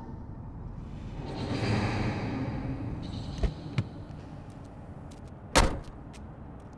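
Car door sounds over a low rumble: a swell of noise, two sharp latch clicks, then a single heavy door slam about five and a half seconds in.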